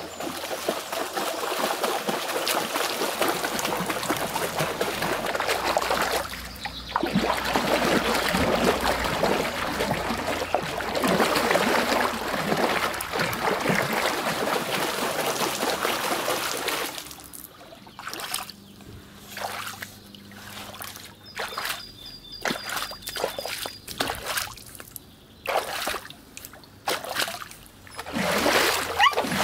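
Water splashing and sloshing as a West Highland White Terrier wades through a shallow stream. It is continuous for the first half, then breaks into short separate splashes with quiet gaps.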